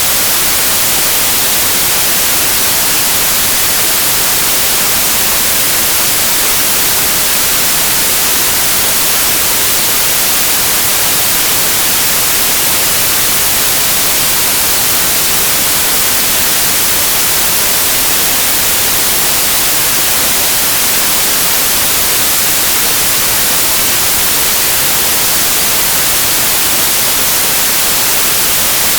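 Loud, steady white noise: an even hiss with no changes or breaks, strongest in the treble.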